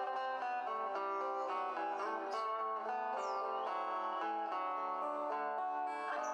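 Instrumental background music led by plucked guitar, with a few short high sliding notes.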